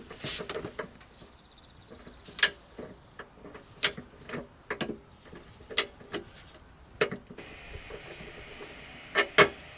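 Irregular sharp clicks and light knocks, several a few seconds apart, with a quick pair near the end, from hand tools and parts being handled.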